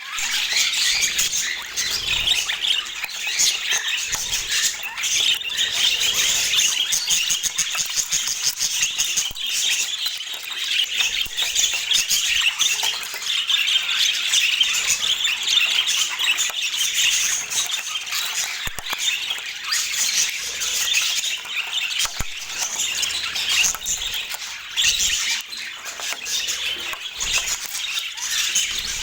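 Budgerigars chattering and warbling without a break, a dense stream of chirps and squawks.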